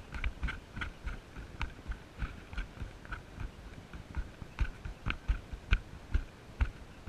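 Light, irregular clicks and knocks, a few a second, some dull and some sharper, from fishing tackle and the hull of a plastic fishing kayak. They are a little louder and more frequent in the second half.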